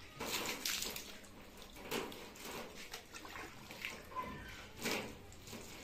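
Water splashing in a few short irregular bursts, the strongest right at the start and about a second before the end.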